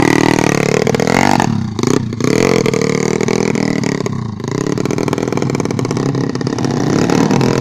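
Trail motorcycle engines revving hard under load on a steep muddy climb, the pitch rising and falling with the throttle and briefly dropping about one and a half seconds in and again around four seconds in.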